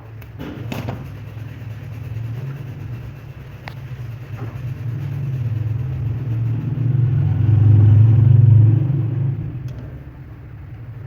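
Electric motor water pump running after a bearing and seal replacement, a steady low hum that swells louder about eight seconds in and then eases, with a couple of knocks in the first second.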